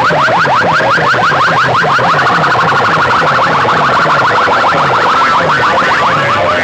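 Loud electronic DJ competition track: rapid alarm-like chirps, about eight a second, over a pulsing bass that falls in pitch with each pulse.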